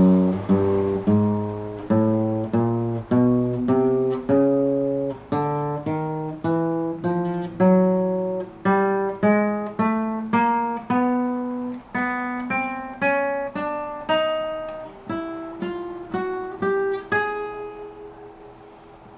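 Acoustic guitar playing single plucked notes one after another, about two a second, climbing up the scale. The last note rings out and fades near the end.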